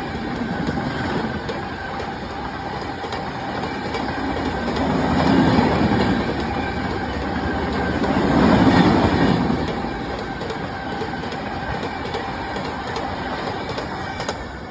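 Indian Railways passenger express train rolling by, its wheels clicking over the rail joints. The rumble swells louder twice, about five and nine seconds in.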